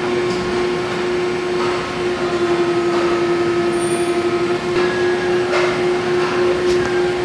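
Old plastic injection-moulding machine running: a loud, steady machine hum on one constant tone. A fast pulsing comes in from about two seconds in to about four and a half, and a few short sharp noises come near the end.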